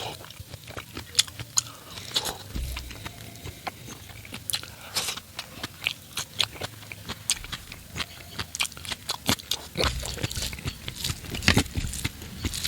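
Close-miked chewing and biting of fatty pork curry with rice: many irregular, wet mouth clicks, with a fuller, lower sound from about ten seconds in.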